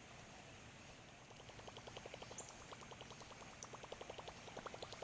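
Fast, even ticking, about eight clicks a second, starting about a second in: a topwater bait being reeled in across the surface.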